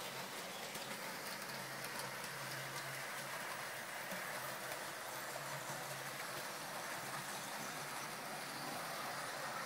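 A steady hiss with a faint low hum under it.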